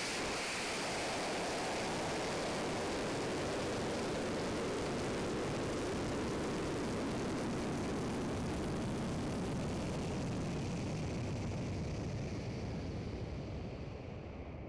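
Wind rushing past an onboard camera housing on a high-power rocket climbing at speed: a steady, even rush of air noise that slowly dies down over the last few seconds as the rocket loses speed.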